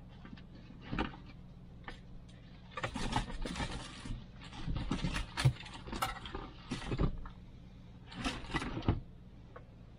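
Hands working a car stereo head unit and its wiring in the dashboard: irregular plastic clicks, knocks and scraping in several short spells, over a faint steady low hum.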